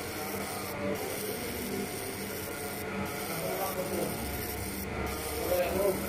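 Laser marking machine running as it engraves anodised aluminium bird leg rings: a steady mechanical hum and hiss, with a few louder irregular sounds near the end.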